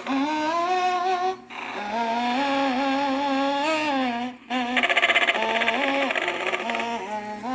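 A recorded voice humming a slow tune, played by a vintage Telco animated Mr. and Mrs. Santa display, in three phrases of held notes that glide from pitch to pitch.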